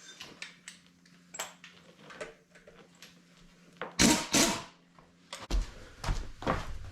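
Hand tools working the bolts on a Ford 460 big-block V8: scattered metallic clicks and taps, two short loud bursts about four seconds in, then a few heavy knocks.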